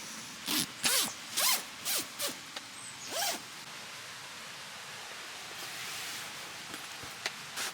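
A zipper pulled in about six quick strokes over the first three and a half seconds, each a short rasping zip.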